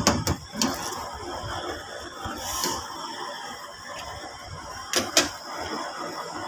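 Water of a kofta pulao boiling hard in a wide nonstick pan on high flame: a steady bubbling and crackling, broken by a few sharp knocks right at the start and a pair of knocks about five seconds in.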